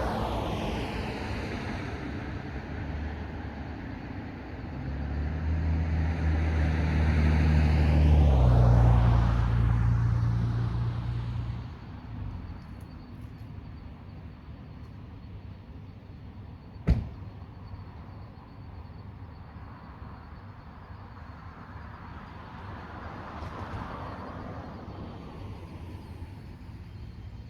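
Cars driving past one after another, their tyre and engine noise swelling and fading. The loudest pass comes about a third of the way in, with a low engine hum that drops in pitch as it goes by. A single sharp click is heard just past the middle, and a fainter car passes near the end.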